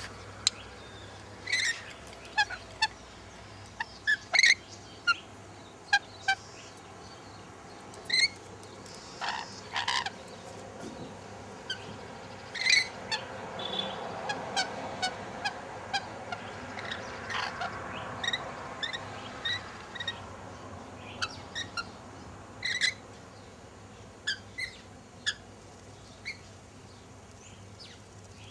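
Wild birds giving short chirps and squawks, scattered irregularly, a few dozen in all.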